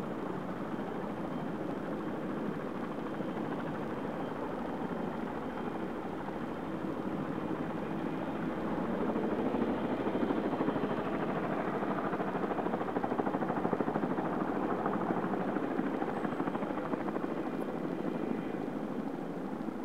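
Tandem-rotor helicopter flying over, its rotors making a rapid, steady beat that grows louder about halfway through and eases slightly near the end.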